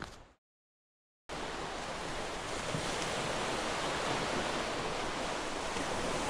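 Steady, even rushing of ocean surf that cuts in abruptly about a second in, after a brief silence.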